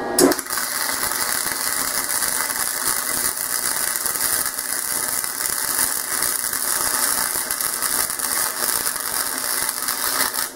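Self-shielded flux-core MIG welding arc laying a bead on steel: a steady, dense crackle that starts a moment in and runs without a break.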